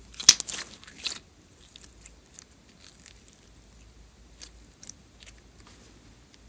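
Slime being pressed and squished by hand: a quick run of sticky crackling clicks and pops in the first second, then scattered small clicks.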